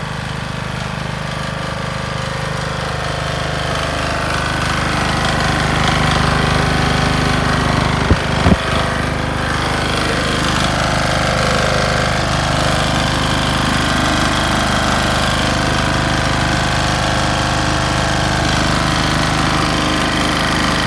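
Engine revved hard and held at high rpm with a heavy, jackhammer-like knock, the sign of a failing connecting rod. It climbs over the first six seconds and then holds, with two sharp bangs about eight seconds in.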